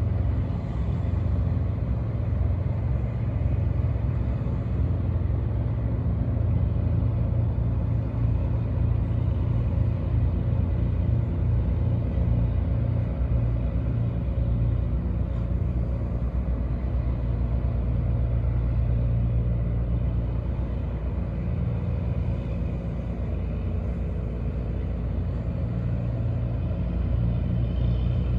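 Steady low rumbling drone of squid-fishing boats' diesel engines running at speed out to sea.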